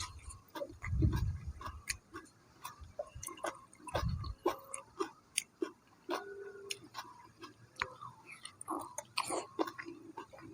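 A person chewing grilled cuttlefish close to the microphone, with many wet mouth clicks and small crunches. There are two brief low thumps, about a second and four seconds in.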